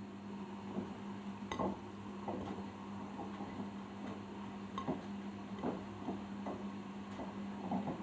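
Arçelik 5083 washing machine in its final rinse: the drum motor hums steadily while the load tumbling in the drum makes irregular light clicks and knocks.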